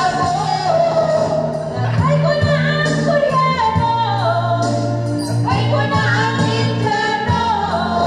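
A woman singing a song into a handheld microphone over a backing track, both played loud through a speaker being sound-checked.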